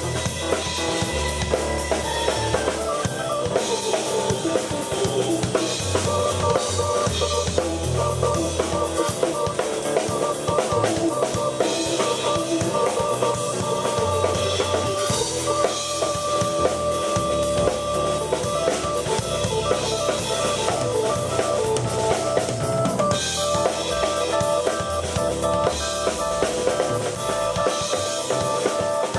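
Live instrumental rock jam by a keyboard and drum kit duo: steady kick, snare and rimshot beat under held keyboard notes and a low bass line.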